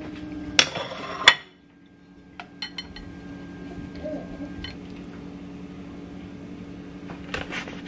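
A metal spatula clinking against a glass baking dish: two sharp ringing clinks about a second in, then a few lighter clicks, over a steady low hum.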